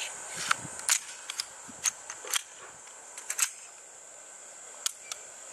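Zastava CZ999 Compact pistol being reassembled by hand: a scattered series of sharp metal clicks and clacks as the slide is fitted back onto the frame and locked into place, over a steady faint high hiss.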